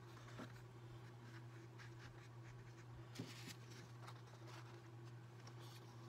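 Faint rustling and soft scraping of a sheet of wet watercolor paper as it is handled and tilted between the hands to run the paint, with one small tap about three seconds in. A steady low hum runs underneath.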